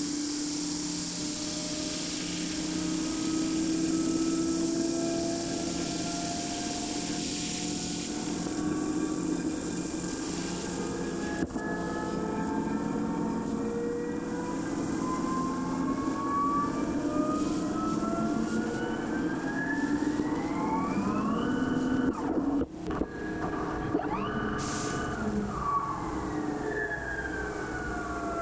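Mazak Integrex mill-turn machine turning a flange under flood coolant. Its spindle whine climbs steadily in pitch through the middle, breaks off briefly, then falls away near the end, over a hiss of coolant spray.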